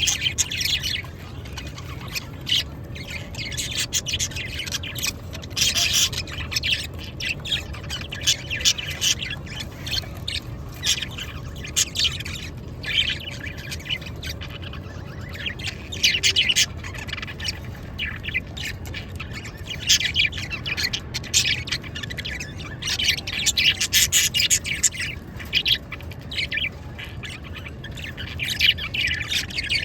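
Small pet parrots chirping and chattering in quick, repeated bursts of high calls.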